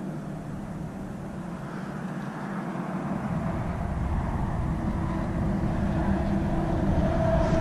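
Engine drone of a passing motor vehicle or machine, a low rumble with a steady hum in it that grows gradually louder from about three seconds in.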